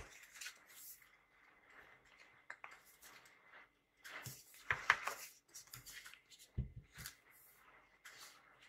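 Paperback books handled on a cloth-covered desk: covers sliding and rustling as the stack is pushed square, with a few soft knocks. The sharpest taps come about five seconds in, then a couple of low thuds near seven seconds as the stack is lifted and set down on its edge.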